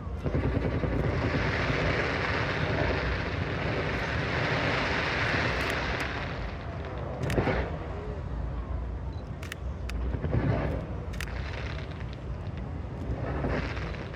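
Fireworks display going off: a dense crackling hiss of many small bursts for about the first six seconds, then scattered sharp bangs and cracks over a low rumble.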